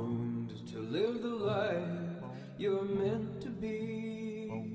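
A song: a man singing over guitar.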